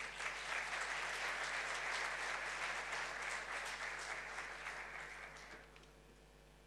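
Audience applauding, a dense round of clapping that starts suddenly and fades out about six seconds in.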